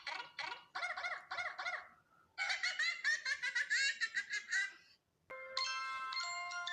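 Rapid high-pitched squealing calls, several short ones a second, in two bouts. Near the end, chime music with a glockenspiel-like melody begins.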